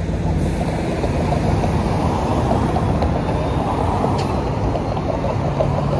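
Street traffic driving past: cars and a hybrid-electric city bus, a steady low engine hum over tyre and road noise.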